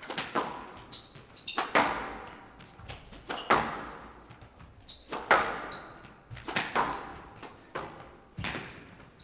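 Squash rally in a glass-court hall: the ball cracks off rackets and walls about every one and a half seconds, each hit ringing on in the hall, with short high squeaks from players' shoes on the court floor between the shots.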